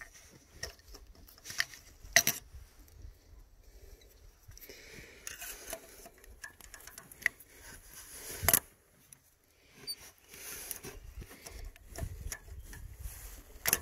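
Needle-nose pliers clicking and scraping against metal down inside a spark plug well as torn pieces of an ignition coil boot are picked out. Small scattered scrapes and taps, with sharper clicks about two seconds in, about eight and a half seconds in, and near the end.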